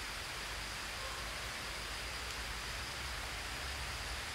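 Steady outdoor forest ambience: an even background hiss with a thin, steady high-pitched tone held over it.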